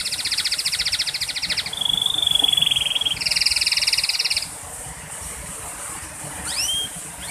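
Canary singing: long, rapid rolling trills that switch pitch every second or two, stopping about four and a half seconds in, then a few quick rising chirps near the end.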